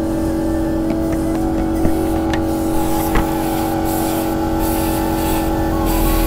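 Air compressor running with a steady hum while a paint spray gun hisses in bursts, spraying black paint onto a motorcycle chassis. A few light clicks come around the middle.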